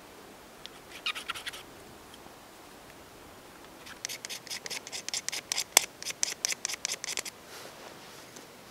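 Knife blade scraping quickly over wood, shaving off fine tinder dust: a short run of strokes about a second in, then a longer run of fast, even scrapes, several a second, from about four to seven seconds.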